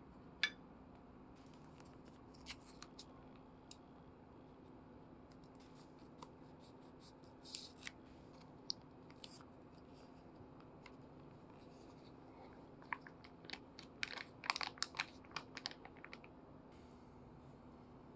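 A single knock near the start as a ceramic bowl is set down, then a foil sachet of peanut sauce being torn open and squeezed out: crinkling, crackling packet noises in scattered spells, densest about 13 to 16 seconds in.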